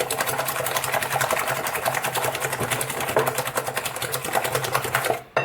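Electric hand mixer running steadily, its beaters clattering rapidly against the bowl as it beats eggs and sugar until the sugar dissolves; it cuts off near the end.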